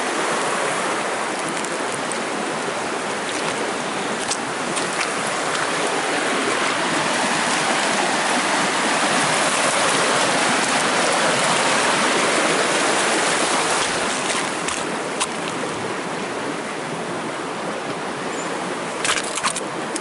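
Small creek rushing over rocks and under fallen logs: a steady rush of water that grows louder around the middle and eases off again, with a few faint clicks near the end.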